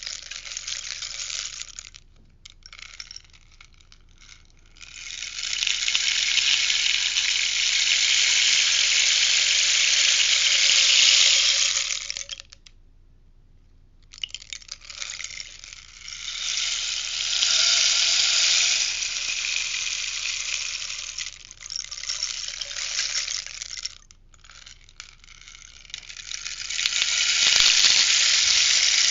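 Rainstick being tipped back and forth: the pellets inside pour down with a steady, rain-like patter for several seconds at a time. The pour falls away and stops briefly three times as the stick is turned, then starts again.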